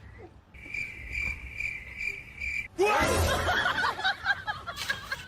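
A steady high chirping trill, pulsing about twice a second, that stops about two and a half seconds in. It is followed by a busy jumble of short squeaky chirps and calls.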